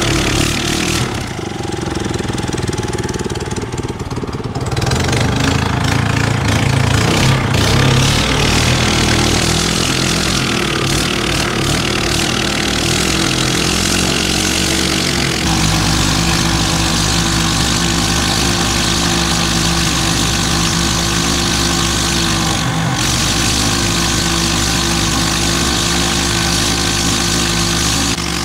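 Small tiller-steered boat engine running under way. It eases off about a second in and picks back up after about four and a half seconds, and its pitch shifts about fifteen seconds in.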